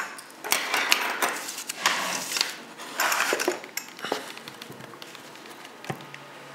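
Rustling and clatter of things being handled on a table: the clear plastic blister and sharpener parts are moved aside and a flat paper stone slab is set down, with a few sharp knocks among the rustling. It dies down after about four seconds, with one more click near the end.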